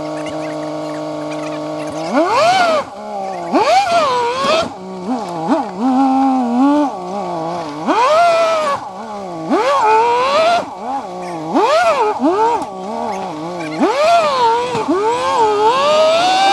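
Off-road Jeep engine idling steadily, then, from about two seconds in, revving up and dropping back again and again, every second or two, as the Jeep climbs over rock ledges.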